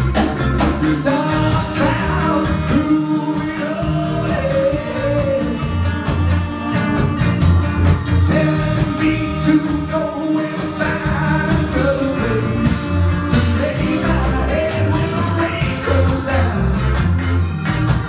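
Live band playing a song: a lead singer over keyboards, electric guitar and a steady drum beat.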